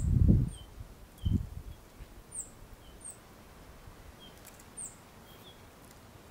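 A fledgling songbird giving short, thin, high begging peeps that drop in pitch, one every half second to a second. Two low thumps come in the first second and a half, the first of them the loudest sound.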